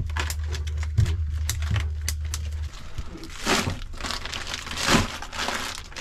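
Plastic food bags crinkling and rustling as food is repacked, with scattered clicks. A low steady hum runs underneath and stops about halfway through.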